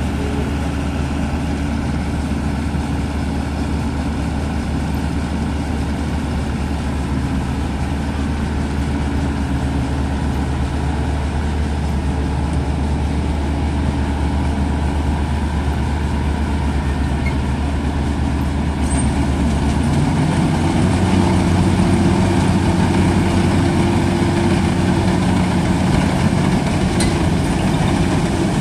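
Diesel engine of a Maxxi NDR 102L crawler rice combine harvester running steadily as the machine is manoeuvred. About two-thirds of the way through it revs up higher and runs a little louder as the tracked machine is driven across the ditch into the paddy.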